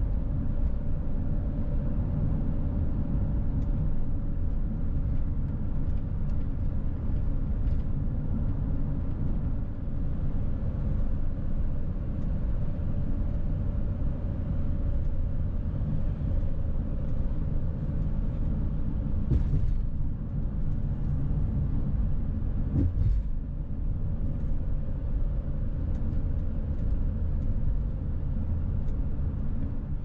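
Steady road and engine noise inside a van cruising at highway speed, a low rumble with a faint steady hum. Two faint knocks come a few seconds apart a little past the middle.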